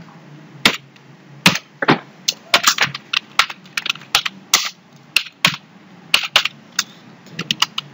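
Computer keyboard typing: separate keystroke clicks at an irregular pace, some in quick runs.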